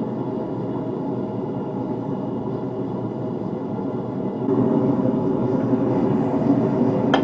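Forge running with a steady roar that gets louder about four and a half seconds in, with one sharp click near the end.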